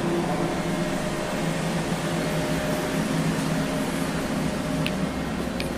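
Steady mechanical hum of a Doosan Puma 400LB CNC turning center under power, with a couple of short ticks near the end.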